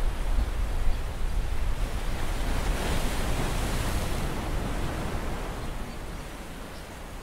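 Water splashing and streaming as a mesh net of eels is lifted out of a bucket, a hissing rush that swells about halfway through and then fades. Wind rumbles on the microphone underneath.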